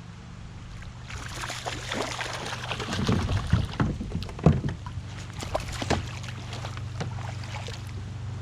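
Hooked smallmouth bass splashing and thrashing at the surface beside a kayak as it is reeled in: irregular splashes and knocks starting about a second in, heaviest around the middle.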